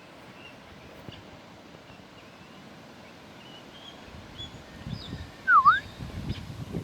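A single loud whistle, about five and a half seconds in, that dips in pitch and rises again, over faint chirps from small birds. Low rumbling noise comes and goes in the second half.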